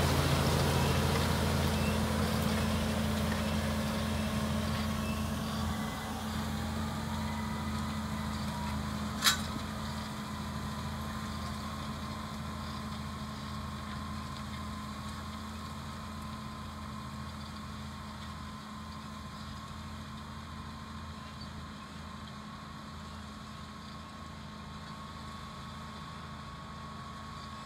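Tractor's diesel engine running as it pulls a strip-till cultivator through stubble, fading steadily as it moves away. A faint whine rises in pitch over the first several seconds, and there is a single sharp click about nine seconds in.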